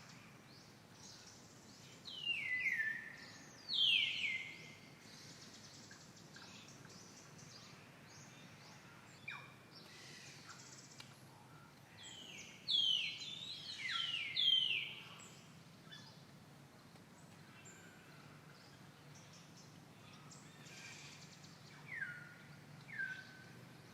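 Monkey's high-pitched fear screams, each short call falling steeply in pitch, the alarm sound of a monkey threatened by another. They come in bouts: two calls and one loud one near the start, three in a row in the middle, and two fainter ones near the end.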